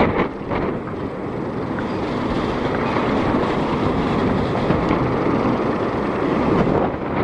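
Strong typhoon wind buffeting the microphone: a loud, steady rumble that turns rougher and gustier near the start and the end.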